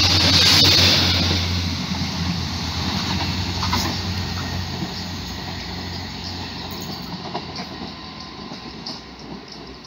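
Passenger train passing through the station at speed: a loud rush of wheel-on-rail noise with a low engine hum, fading steadily as the train moves away down the line.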